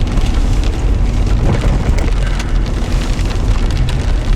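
Strong rear-flank downdraft wind near a tornado buffeting the chase vehicle and the microphone: a loud, steady low rumble with scattered sharp ticks and knocks.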